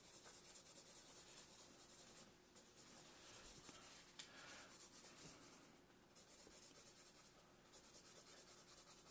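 Faint, rapid scratching of a felt-tip marker stroked lightly back and forth across paper in quick short strokes.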